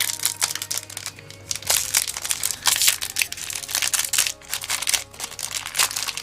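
Plastic-foil trading card booster pack crinkling with irregular crackles as it is handled and opened by hand.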